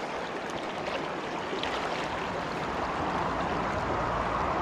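Shallow freestone stream running over cobbles: a steady rush of water that slowly gets louder.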